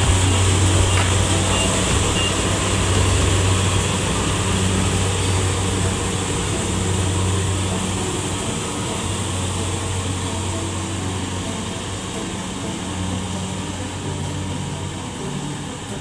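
Tracked rice combine harvester's diesel engine running steadily, the sound slowly fading as the machine moves away.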